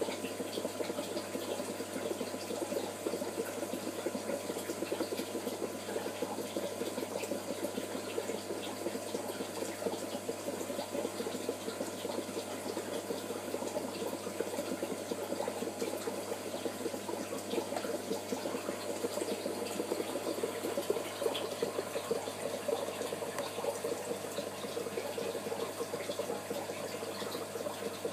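Steady bubbling and trickling of water circulating in a home aquarium, the sound of its filtration running, over a faint steady hum.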